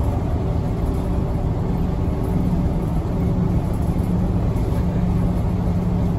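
Hiroden city bus engine running with a steady low rumble and hum, heard from inside the bus.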